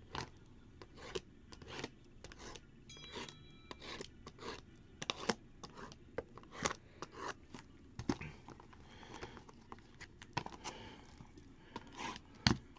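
Box cutter slitting open the seal on a cardboard trading-card box, with scattered light scrapes and clicks as the box is handled.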